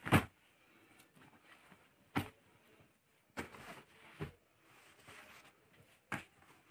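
Cloth rustling and swishing as an embroidered ladies' suit is unfolded, flipped over and laid out by hand, in several short bursts with the loudest at the very start.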